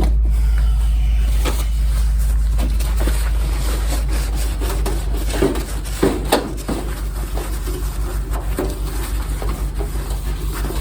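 Kerosene heater parts being wiped clean by hand: rubbing and scraping on metal, with a few sharp knocks about five to six seconds in as the part is handled. Under it runs a loud steady low hum that starts to pulse about halfway through.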